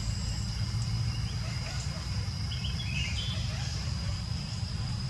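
Outdoor ambience: a steady high-pitched insect drone over a constant low rumble, with a few faint short chirps about two and a half to three seconds in.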